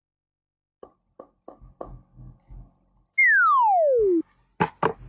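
A handful of light taps, then a loud whistle-like tone sliding steadily down in pitch for about a second, then two or three sharp knocks near the end.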